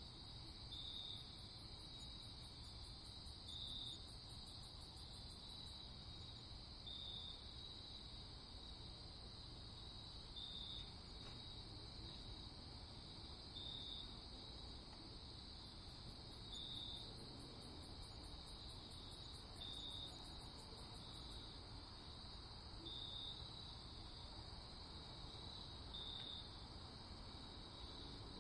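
Faint insect chirping: a steady high trill with a brighter chirp about every three seconds.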